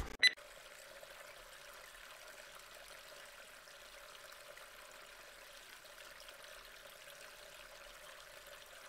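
A single sharp click just after the start, then a faint, steady rushing noise like a running stream.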